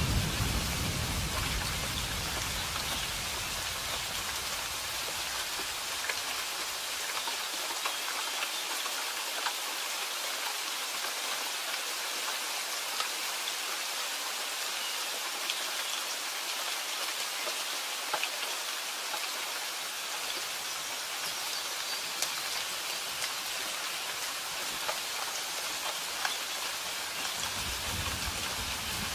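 Steady rain falling on a surface, with scattered sharper drop ticks. A low rumble of thunder dies away over the first several seconds, and a low rumble comes back near the end.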